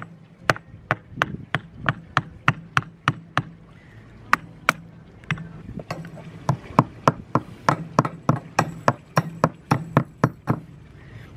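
Hammer striking a wood chisel to cut into a teak rail: sharp, steady taps about three a second, with a short pause midway, stopping shortly before the end.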